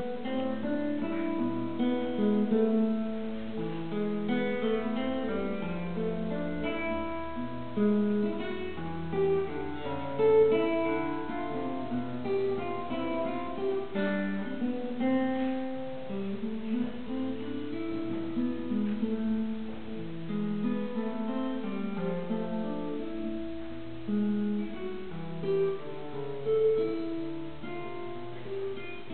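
Solo classical guitar played fingerstyle: a continuous piece of many short plucked notes, a bass line moving under a higher melody.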